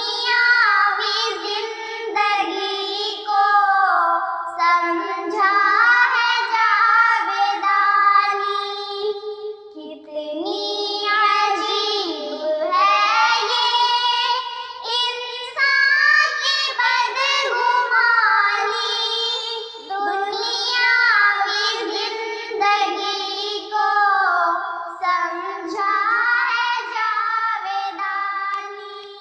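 Two young girls singing an Urdu nazam together, with no instruments. The voices go in long melodic phrases with short breaks between the lines.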